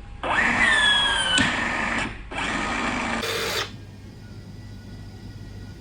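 Cordless blind-rivet tool's motor running as it pulls a steel multi-grip large flange blind rivet, its whine sagging in pitch under load until a sharp snap about a second and a half in as the mandrel breaks off. The motor then runs again for about a second, ending in a brief noisy burst.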